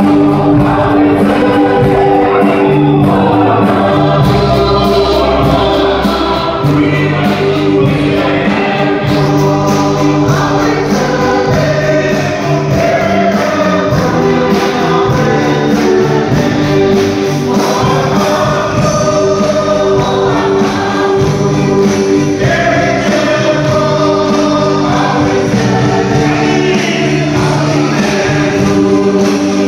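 Choir singing a gospel hymn over a steady accompaniment of long held low notes.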